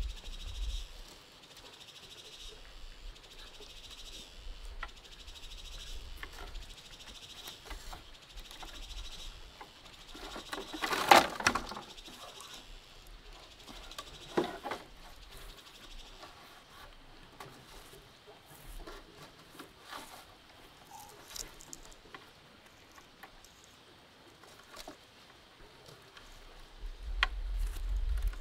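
Rustling and small clicks of plastic mesh netting and wire being handled as the netting is tied to bamboo fence posts. The loudest rustle comes about eleven seconds in, a smaller one around fourteen seconds, and a sharp click near the end. A faint, high, steady hum lies underneath.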